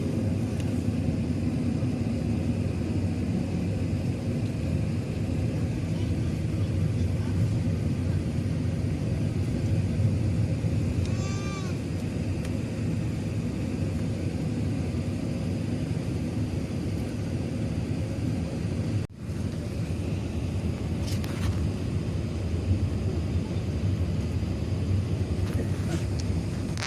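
Steady low rumble of an Airbus A380 heard from inside the passenger cabin, with a brief high chirp about eleven seconds in. The sound cuts out for an instant about two-thirds of the way through.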